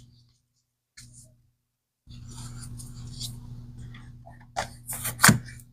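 Stiff postcards being handled and shuffled: soft rustling and scraping of card against card over a steady electrical hum, with a few sharp taps near the end. The sound cuts out to dead silence twice in the first two seconds.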